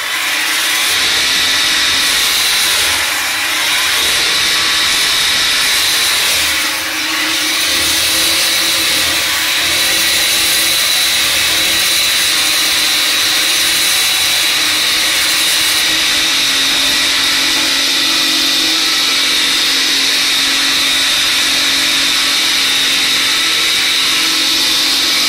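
Electric sugarcane-peeling machine running steadily, a constant whirring with a high, even whine, as a sugarcane stalk is fed through its scraper.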